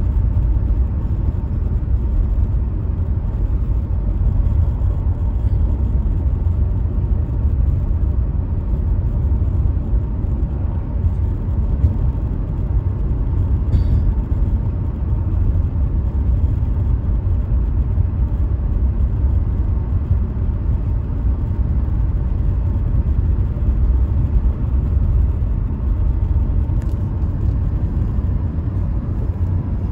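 Car driving along a paved road, heard from inside the cabin: a steady low rumble of tyre and engine noise.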